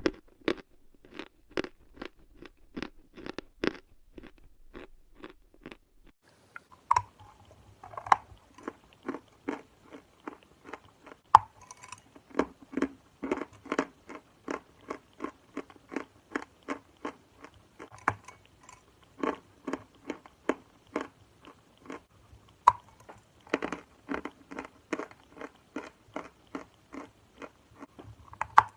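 Dry chalk being bitten and chewed close to the microphone: steady crunching chews about three a second, with a few sharper, louder snapping bites mixed in. The chewing pauses briefly about four seconds in.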